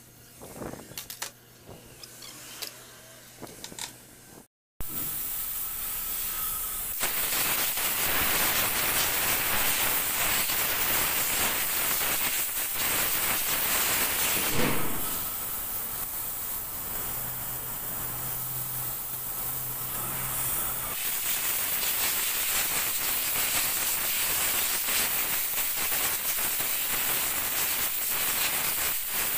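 Compressed-air spray gun hissing steadily as it blasts a cleaning mist over a CV axle joint. A few faint clicks and scrapes of a hand tool on the grease-packed joint in a vise come first, before the hiss starts about five seconds in.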